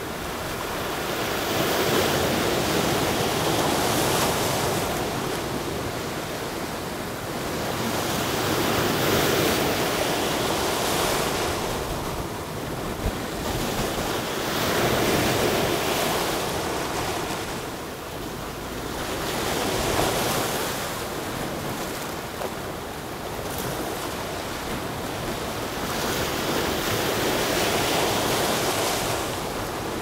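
Ocean surf: waves breaking and washing in. The rush swells and fades about every six seconds.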